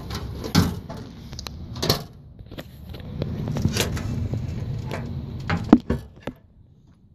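Handling noises as the rear engine lid of a 1966 Volkswagen Beetle is unlatched and lifted: a few clicks and knocks of the latch and metal lid, the sharpest a little before the end, over the rustle of a phone being held.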